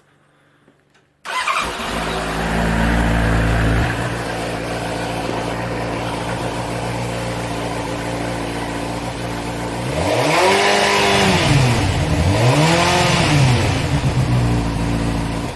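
2013 Honda CBR600F's inline-four engine through an aftermarket Dominator exhaust with the baffle fitted, starting about a second in and running at a fast idle that settles to a steady idle after a few seconds. Near the end it is revved twice, each rev rising and falling in pitch, before it cuts off suddenly.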